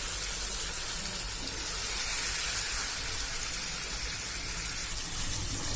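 Cauliflower and yogurt curry sizzling in the pan, a steady, even hiss.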